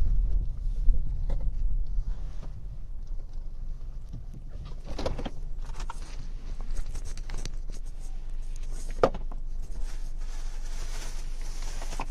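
Car engine and road rumble heard from inside the cabin, a steady low drone that eases off after the first couple of seconds. A few sharp knocks and rustles come through, the loudest about nine seconds in.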